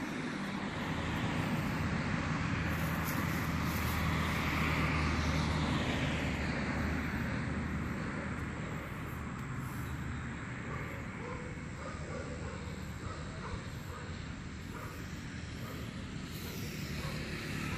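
Road traffic: a passing vehicle's engine hum and tyre noise swell over the first few seconds and then fade, leaving a steady traffic hum.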